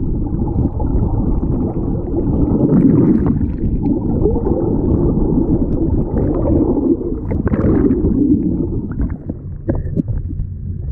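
Muffled, low rumbling and gurgling of churned, bubbly water heard through an action camera held underwater beside a moving fishing boat. Near the end the rumble thins out and a few sharp knocks are heard as the camera comes up out of the water.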